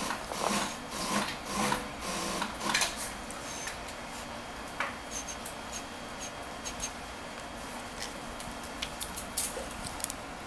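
Sped-up squeaks of a cloth rubbing across an iPhone's glass screen as it is wiped clean, followed by scattered small clicks and crackles as a plastic screen protector film is handled.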